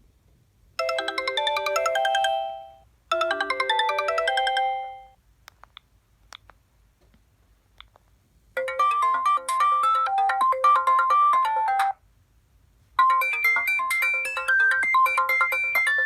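Sony Ericsson C510 mobile phone ringtones: a short melody that plays twice, its notes fading at the end of each phrase. After a pause of a few seconds, a different, quicker and higher-pitched melody also plays twice.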